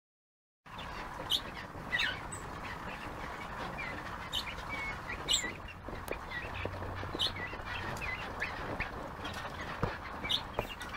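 Birds chirping and twittering in many short high calls over a steady background hiss, starting under a second in.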